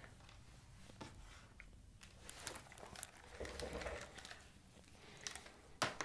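Faint rustling and light clicks of hands handling things on a workbench as a clamp multimeter is fetched and set down, with one sharper click near the end.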